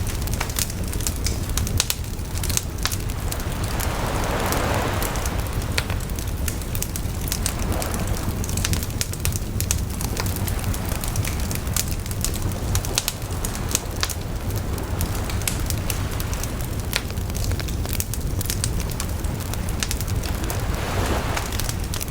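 Wood campfire crackling with frequent sharp pops, while sea waves wash onto the shore a few times: about four seconds in, again around eight seconds, and near the end.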